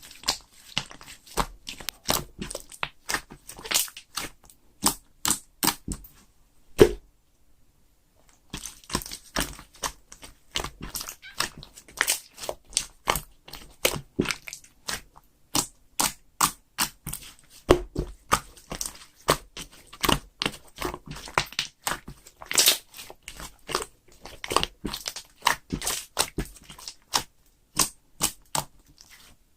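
Slime being pressed and squeezed by hand, giving a run of sharp crackling pops and crunches several times a second, with one louder pop about seven seconds in followed by a brief pause.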